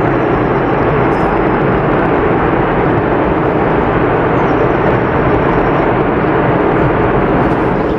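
Rockfall or landslide: a steady, loud rumbling rush of moving rock with no single impacts standing out.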